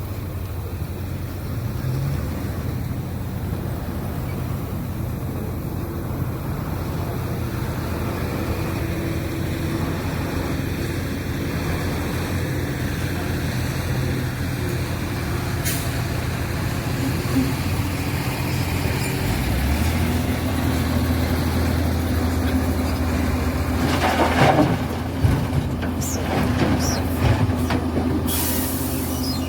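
Link-Belt excavator's diesel engine running steadily, its note rising and getting stronger about two-thirds of the way through as it takes on load, with a few metallic clanks near the end and a short loud hiss just before it ends.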